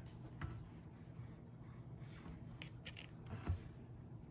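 Faint scraping and light clicks of handling at close range, a few short scrapes spread through, with a soft thump about three and a half seconds in, over a low steady hum.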